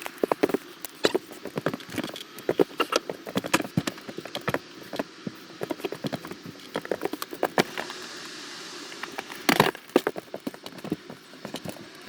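Irregular clicking, tapping and rustling, as of things being handled, with a brief steady hiss about eight seconds in and a louder knock about nine and a half seconds in.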